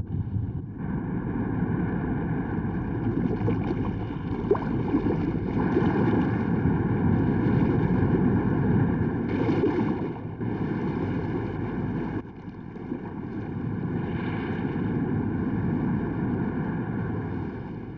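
Sea waves surging against a rocky shore: a continuous rushing of water that swells and eases, dropping briefly about twelve seconds in.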